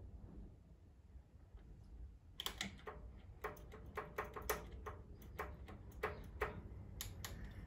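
Irregular sharp clicks, a dozen or so, starting about two and a half seconds in and stopping near the end, over a low hum, as a 400 W Philips HPI-T Plus metal halide lamp on a choke ballast tries to strike its arc without an external igniter.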